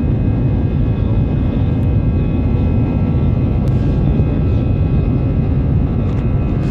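Airbus A320's twin jet engines at takeoff power heard from inside the cabin during the takeoff roll: a loud, steady rumble with several thin, steady whining tones over it.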